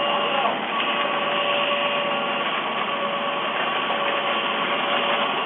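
Steady, loud rushing noise with a faint hum that drops out and returns a few times.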